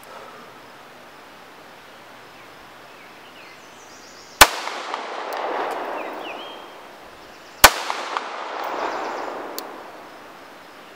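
CZ 75 B pistol fired twice, about three seconds apart, each shot followed by a long rolling echo.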